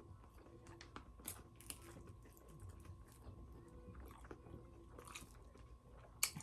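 A person chewing and biting crispy fried chicken close to the microphone: soft, scattered crunches, the loudest near the end.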